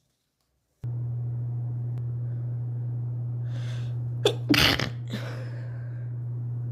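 A girl's stifled sneeze about four and a half seconds in: a breath in, a sharp catch, a short held-back burst, then a breath out. A steady low hum starts about a second in and runs under it.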